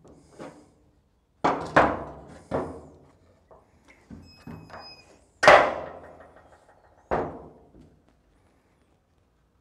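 A Ford windshield wiper motor being knocked and worked against a steel truck-bed workbench. About seven heavy metal thunks come at uneven intervals. The loudest, about halfway through, rings on briefly.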